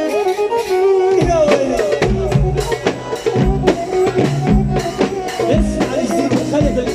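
Egyptian shaabi band music: a lead melody with sliding, bending notes, joined about a second in by a drum kit playing a steady beat.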